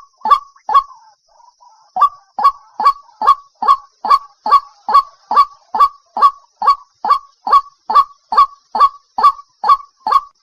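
White-breasted waterhen calling a loud, monotonous run of 'kruak' notes, about two or three a second. A short break about a second in holds only faint, softer notes before the steady run resumes.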